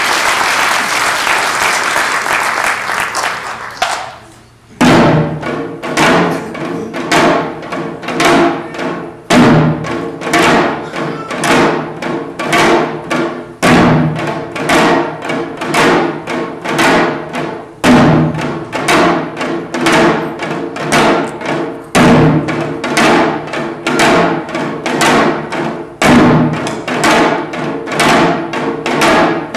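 Several Korean janggu hourglass drums played together with sticks, starting after about four seconds of applause and a brief pause. The drums then keep up a fast rhythmic pattern of dry strokes, with a heavy accented beat about every four seconds.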